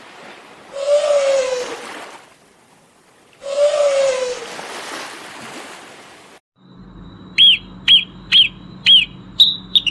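An animal call with a falling pitch, given twice and each lasting about a second and a half. After a cut, a bird gives a run of short, high whistled chirps, about two a second.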